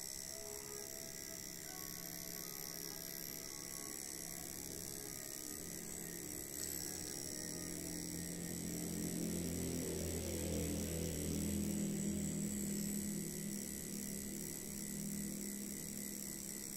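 Homemade prison-style tattoo machine running as its needle works the skin: a steady electric motor hum, louder for several seconds in the middle.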